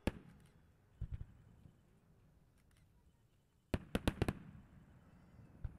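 Aerial firework shells bursting: one bang at the start, two about a second in, a quick cluster of about five around four seconds in, and one more near the end.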